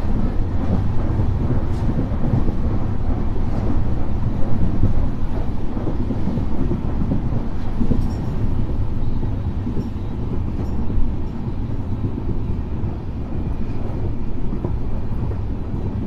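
Passenger train running at speed, heard alongside the coach: a steady rumble of wheels on the track.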